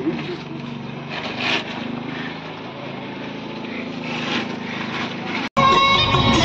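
A steady engine drone with hiss. About five and a half seconds in it cuts off and loud instrumental music starts.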